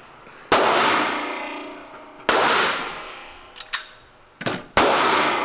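Three handgun shots, a couple of seconds apart, each a sharp crack followed by a long ringing echo in an enclosed indoor range. A few fainter sharp clicks fall between the second and third shots.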